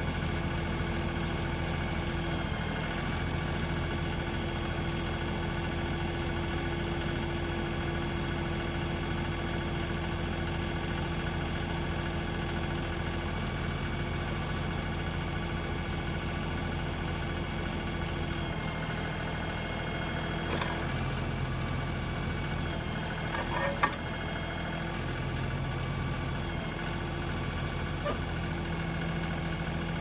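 LS tractor's diesel engine running steadily while the backhoe arm works, its pitch shifting slightly as the hydraulics take load. A sharp knock about 24 seconds in.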